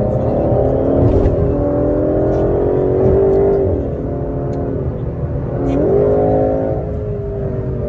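Aston Martin DBS Superleggera's twin-turbo V12 heard from inside the cabin, climbing in pitch under hard acceleration. The note drops sharply at a gear change about three and a half seconds in, dips and climbs again around six seconds, then falls away near the end.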